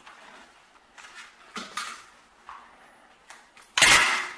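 Staple gun fired once near the end, driving a staple through the stretched canvas into the wooden stretcher strip with a single sharp snap. Before it come a few soft rustles of the canvas being smoothed and pulled.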